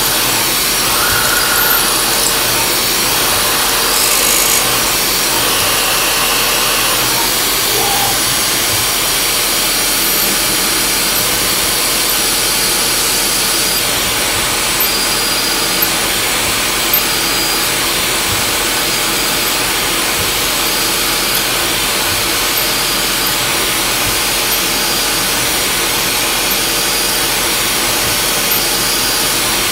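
A 1995 Haas VF-3 CNC mill's spindle and end mill cutting a metal block, a steady run of cutting noise with a hiss from the coolant spray nozzle aimed at the cut.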